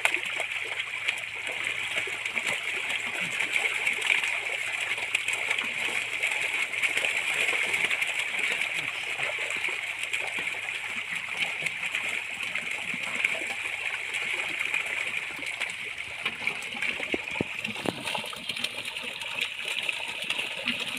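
Steady splashing and sloshing of pond water from a seine net crowded with pangasius catfish thrashing at the surface, with a constant dense crackle of small splashes.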